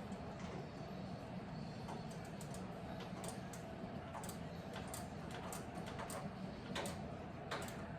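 Ratchet wrench with a 3/4-inch socket clicking in short runs as the handlebar riser bolts are snugged up, the clicks coming more often from about three seconds in. A faint steady hum runs underneath.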